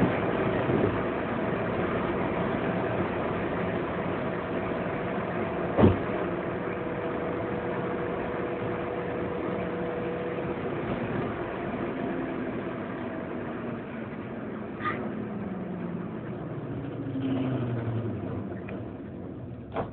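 Peugeot 206 heard from inside the cabin at high speed: steady engine, wind and road noise. Over the last several seconds it slides down in pitch and grows quieter as the car slows from around 185 km/h. A short knock comes about six seconds in.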